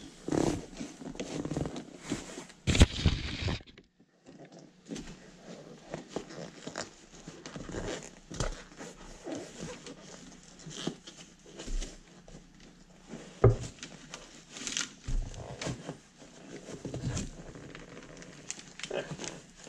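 Hands stripping the fabric cover off a Recaro seat headrest's foam: irregular rustling and crinkling with scattered knocks and clicks, the loudest knock about three seconds in.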